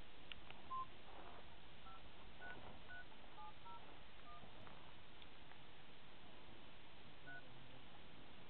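Phone keypad dialing tones: a short single beep about a second in, then a quick run of six two-tone dialing beeps and one more near the end, over a faint steady hiss.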